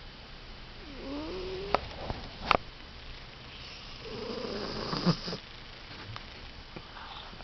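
Domestic cat snoring in its sleep: two drawn-out snoring breaths a few seconds apart, with a few sharp clicks between them.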